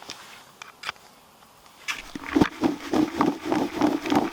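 Hand spray bottle of Bumbleberry Goo bait flavouring spritzed onto maggots in a couple of short hisses, then a fast rhythmic rattling of about five strokes a second from about two seconds in as the bait is worked.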